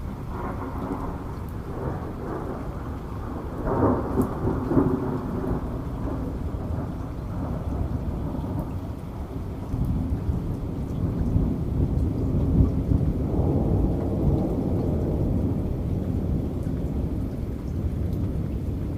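Rolling thunder over steady rain, the low rumble swelling about four seconds in and again for several seconds from about ten seconds in.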